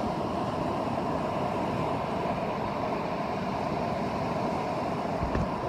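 Steady rushing noise of surf and wind on a beach, picked up by a phone's microphone.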